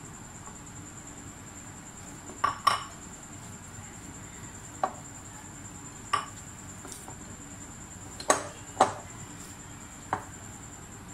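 Stiff potato dough being kneaded by hand in a glass bowl, with about seven sharp, irregular knocks and clinks against the glass, some in quick pairs. A faint steady high-pitched whine runs underneath.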